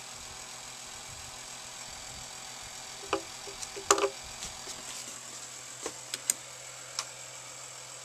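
A few light clicks and knocks as a dial caliper's jaws close on a plastic belt cog on a wooden bench, the sharpest about four seconds in. A steady hum runs underneath.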